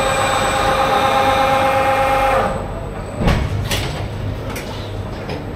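Factory machinery on an electric-drive assembly line. A steady pitched whine lasts about two and a half seconds and stops, then a clunk comes about three seconds in, followed by a few lighter knocks, over a steady low machine hum.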